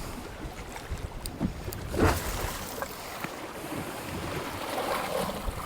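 Wind buffeting the microphone and lake waves lapping against a fishing boat's hull, with a single thump about two seconds in.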